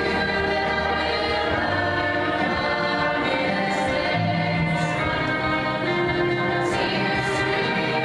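Mixed-voice high school show choir singing, holding long sustained chords that change every second or so.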